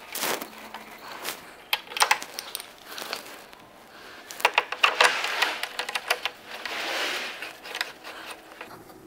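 Irregular clicks, knocks and rattles of an aluminum MIG welding gun's connector plug and cable being handled and fitted into the welder's front gun socket, with a few short rustling, scraping sounds.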